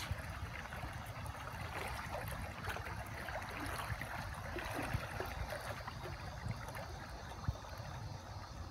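Dog swimming, its paddling stirring up soft splashing and lapping water, over a steady low rumble.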